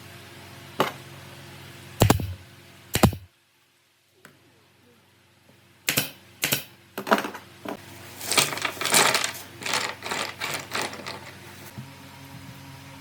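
Sharp knocks and taps from hand work in a woodworking shop, over a steady low hum. Scattered single knocks give way to a quick run of taps about halfway through, with a brief drop to silence about three seconds in.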